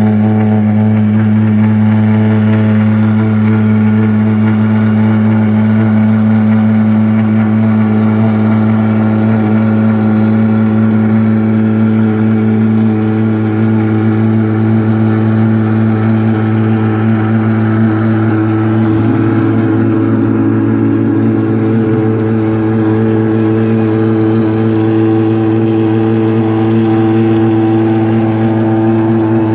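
Maserati MC12's V12 engine idling steadily and loudly at a constant pitch, its note changing slightly about halfway through.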